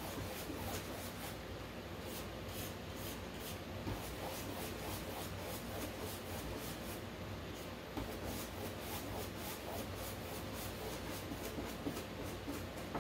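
Flat paintbrush loaded with acrylic paint brushed back and forth across a canvas board: a continuous run of light, scratchy, rhythmic strokes as wet paint is blended.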